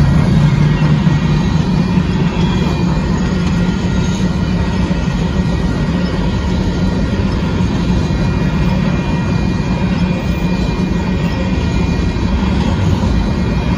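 Freight train of covered hopper cars rolling past at close range: a steady rumble of steel wheels on the rails.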